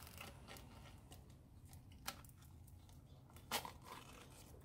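Cured silicone rubber being peeled out of a plastic mixing cup: faint rustling with two short snaps, the louder one about three and a half seconds in.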